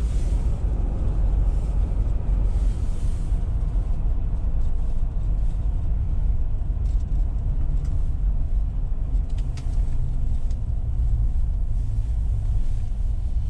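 A car's steady low rumble of engine and road noise, running continuously without change.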